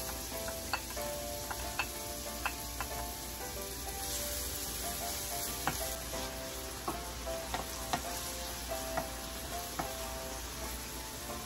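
Diced onion sizzling in hot olive oil in a stainless steel wok as it is sautéed, stirred with a wooden spoon that knocks lightly against the metal pan at irregular moments.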